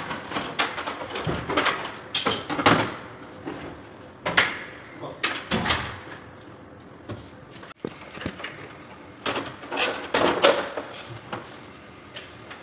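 Irregular knocks, clicks and short scrapes from hands working on the plastic casing and parts of a split air-conditioner's indoor unit, reassembling it.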